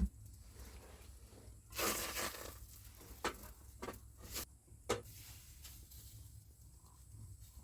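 Rustling handling noise: a short burst of rustling about two seconds in, followed by four sharp clicks or taps spaced about half a second apart.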